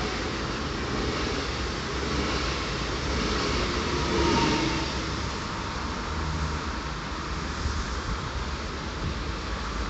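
Electric passenger train passing close by, a steady rush of wheels on rail that eases off after about five seconds as the last cars go by. The noise of busy road traffic runs underneath.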